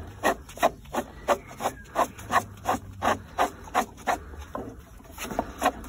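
Threaded filter bowl of a kerosene oil-line filter being slowly unscrewed by a gloved hand: a run of short, evenly spaced scrapes, about three a second.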